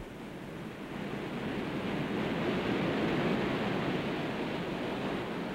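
Ocean surf: a rushing wash of waves that builds to its loudest about halfway through, then eases slightly.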